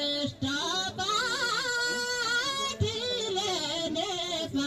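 Thadi bhaka, the folk singing style of Nepal's Karnali region: a single voice sings long held notes joined by wavering, bending ornaments, pausing briefly for breath twice.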